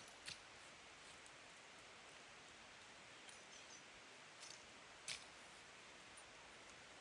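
Near silence: a faint steady hiss with a few short sharp clicks, the clearest two about a third of a second in and about five seconds in.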